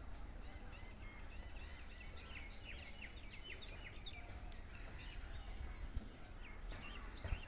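Faint rural ambience: birds chirping, busiest from about two to five seconds in, over a steady high insect drone and a low rumble, with a couple of faint knocks near the end.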